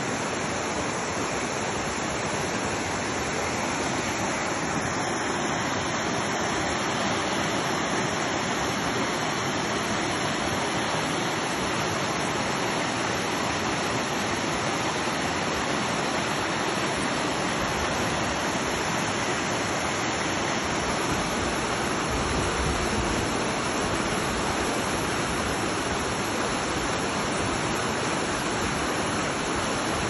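River water rushing over a small rapid, a steady, even rush of white water.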